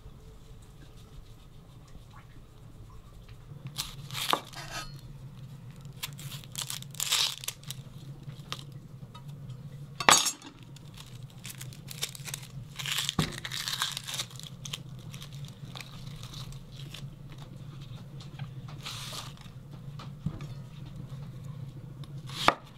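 Hands preparing a marinade: irregular crinkling and rustling with a few sharp knocks, the loudest about halfway through, over a steady low hum.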